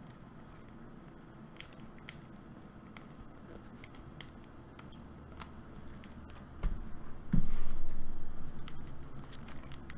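Trading cards being handled and sorted on a table: scattered light clicks and taps. Two dull thumps come about two thirds of the way through and are the loudest sounds.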